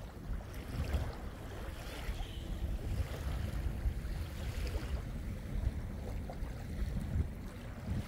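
Wind buffeting the microphone in uneven gusts, over small waves lapping at the sandy shore of a calm sea.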